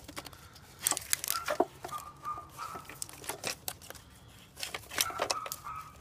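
Plastic wiring harness and its connectors rustling and clicking in irregular bursts as the harness is pulled and worked out by hand from between an engine's fuel rail and valve cover.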